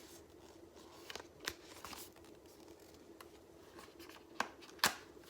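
Hands handling small watch-band packaging: a few light clicks and rustles, the sharpest two coming near the end, over quiet room tone.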